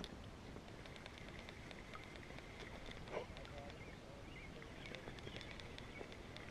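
Faint outdoor ambience on open water, with light chirping and ticking and one soft knock about three seconds in.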